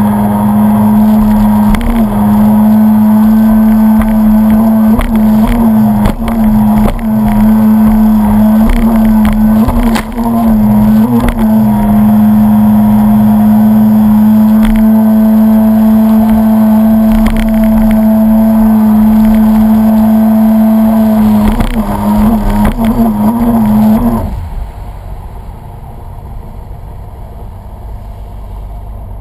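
Stand-up jet ski engine running hard at speed: a loud, steady buzzing note that wavers briefly a few times. About 24 seconds in, the throttle comes off and the engine sound drops to a much quieter running.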